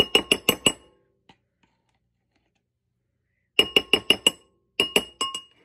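A metal utensil tapping rapidly against the rim of a glass mixing bowl to knock mayonnaise off it, the glass ringing briefly after each clink. Three quick runs of about five or six taps: one at the start, one about three and a half seconds in, and a shorter one near the end.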